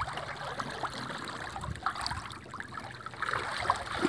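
River water trickling and sloshing around a dorado held in the water at a boat's side, with small irregular splashes as the fish and hand move in it before release.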